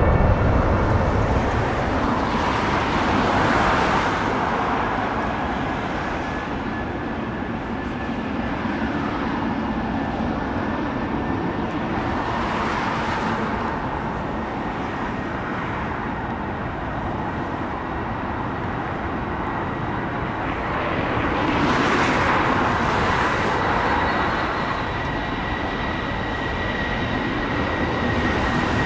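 Airbus A320-family airliner jet engine noise: a continuous rushing with a thin steady whine, swelling and fading three times.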